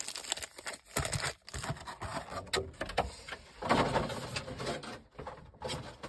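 Foil booster-pack wrappers crinkling and rustling as a stack of Pokémon Crown Zenith packs is handled and set down, with a few light clicks and taps.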